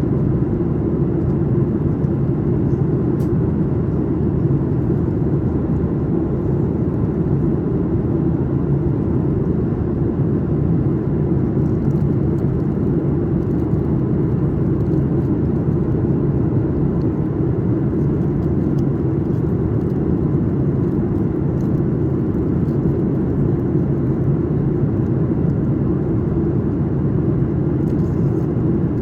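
Steady cabin noise of a Boeing 737-900ER in cruise: a constant low roar of the CFM56-7B engines and the air rushing past the fuselage, with a few faint small clicks.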